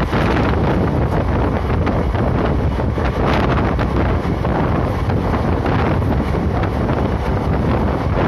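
Wind buffeting a phone's microphone held out of a fast-moving passenger train, a steady loud rush over the running noise of the train.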